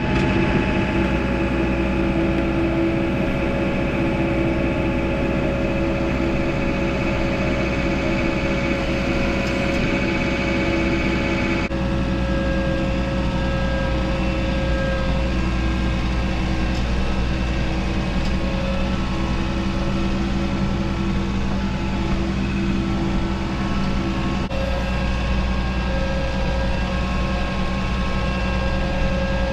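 An engine running steadily at an even speed, its tone shifting abruptly twice.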